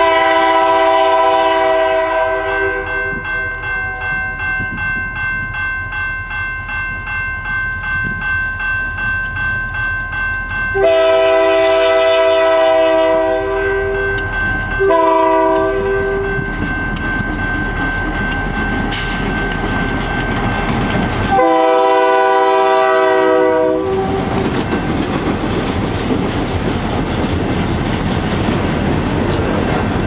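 Diesel freight locomotive's multi-chime air horn blowing the grade-crossing signal: a long blast that holds for several seconds, another long blast, a short one and a final long one. Then the steady rumble and clatter of the locomotive and cars rolling past close by.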